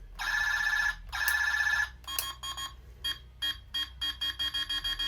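Electronic sound effects from a talking Buzz Lightyear action figure's small speaker: two buzzing zaps, then a run of short beeps that speed up.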